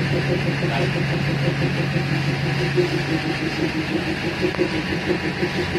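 Diesel engine of a DEMU train idling, heard inside the driving cab: a steady low hum with a quick, even throb.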